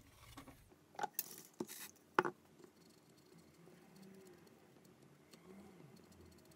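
A few short hissing bursts and clicks from an aerosol can of flux cleaner being sprayed onto a circuit board, then faint scrubbing of a cotton swab over the solder joints.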